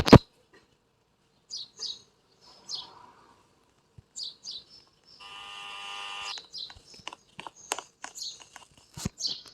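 Bird chirping in short high notes that glide downward, in pairs, three times. Around the middle a steady pitched tone sounds for about a second, with scattered light clicks near the end.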